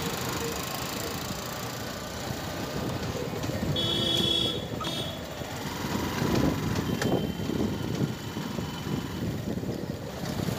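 Motorcycle and street traffic noise, a steady mix of engines and road sound, with a brief high beep about four seconds in.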